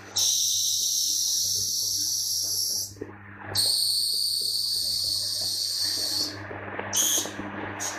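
CNC lathe turning a small metal part: a loud high hiss from the cutting tool in two stretches of about three seconds each, with a short break between them, then two brief bursts near the end, over the machine's steady low hum.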